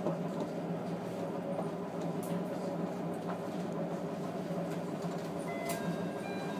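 Steady hum of a diesel railcar's engine running, heard from inside the car, with a few faint clicks.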